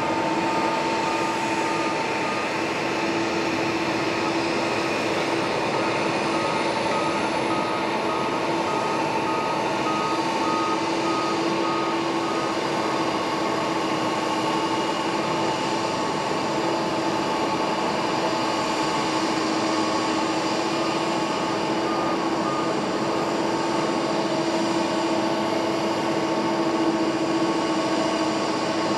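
Twin jet engines of a Boeing 777 airliner running as it rolls out and slows on a wet runway after touchdown: a steady whine and hum over a haze of noise. A thin high tone rises slightly about a quarter of the way in.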